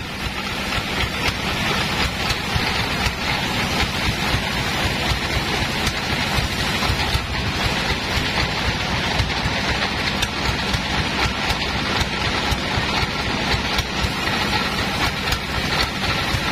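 Sawmill log bandsaw running: a loud, steady machine noise with a low hum underneath.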